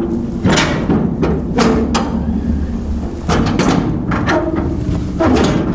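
Steel shipping-container door being unlatched and opened: a run of metal clanks and knocks from the locking bars, handles and cam keepers, some ringing briefly, over a steady low wind rumble on the microphone.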